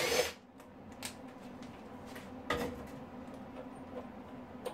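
A cordless drill-driver runs briefly at the start, backing out a screw that holds the milling vise's mount. Then come quiet clicks and knocks of the vise and base being handled, one louder knock about two and a half seconds in, over a faint steady hum.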